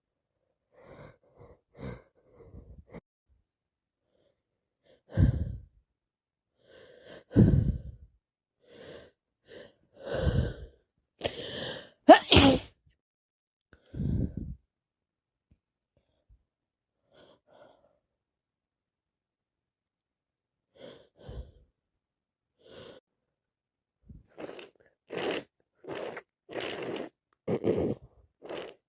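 A person with a common cold sneezing. A few short breaths build up to a sharp sneeze about twelve seconds in, the loudest sound here. Further sneezes and breaths follow, with a quick run of them every second or so near the end.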